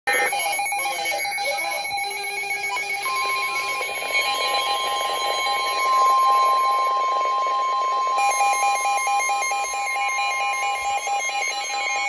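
Weather alert radios going off for a Severe Thunderstorm Warning: pulsing electronic alarm beeps throughout, joined about three seconds in by the broadcast's long, steady NOAA Weather Radio warning tone.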